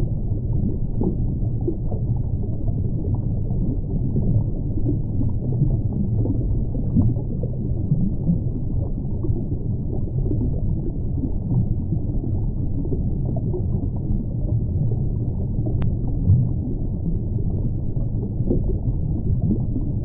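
Underwater ambience: a steady low rumble of moving water with faint crackles, and one sharp click near the end.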